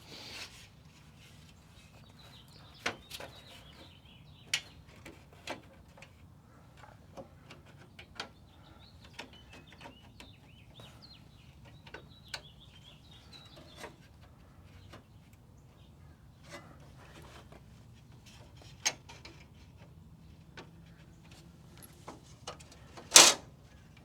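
Scattered light clicks and taps of plastic grille clips and hardware being handled and pressed into place on a Toyota AE86 front grille, with one louder sharp snap near the end.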